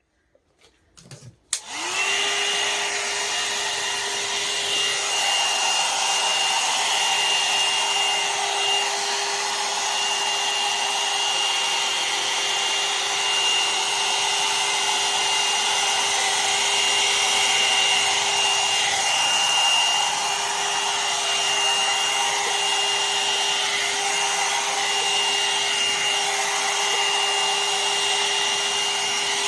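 A one-step hot air brush (1000 W hair dryer and volumizer) starts about two seconds in, its fan motor spinning up quickly, then runs steadily on its high setting, with a constant hum, a high whine and the rush of blown air.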